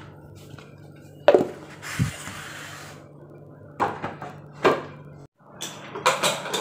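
A few separate knocks and clatters of kitchen pots, lids and utensils being handled, with a short hiss after the first knock, over a low steady hum.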